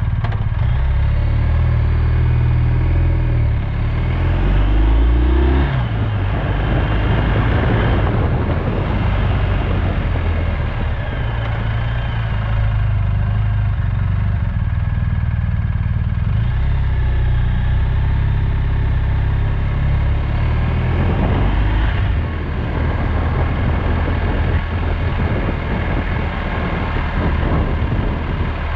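Motorcycle engine under way, its pitch rising as it accelerates a couple of seconds in and again about midway, over wind and road noise.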